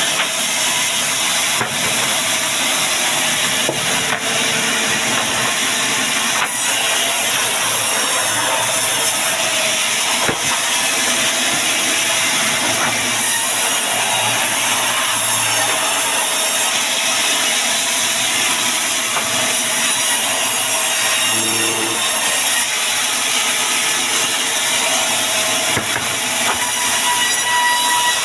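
A band sawmill blade running steadily through a log.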